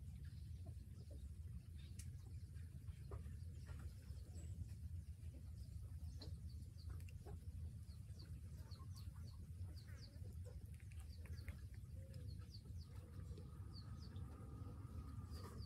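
Faint high bird chirps, many short ones scattered throughout, over a low steady rumble, with a faint drawn-out tone near the end.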